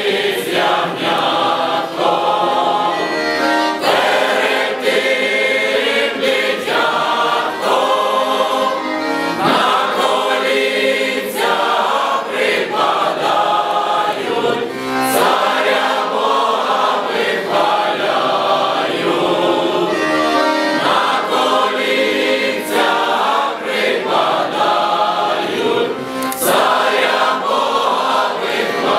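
Mixed choir of adults and children singing together, with no break.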